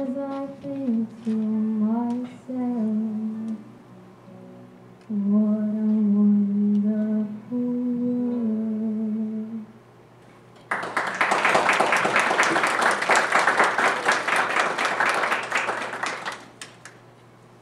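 A young woman sings the closing held notes of a song into a microphone, with classical guitar accompaniment, the melody stepping down toward the end. About a second after the last note, the audience applauds for about five seconds.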